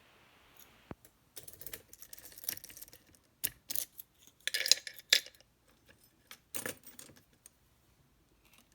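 Small metal pieces, keys and a lock cylinder, being handled, giving short clusters of jingling and clicking. There are three bursts, the loudest a little before the middle.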